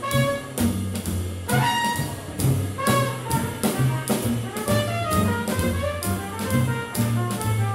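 Swing jazz band playing an uptempo number: horns carry the melody over a bass line and a steady, driving beat.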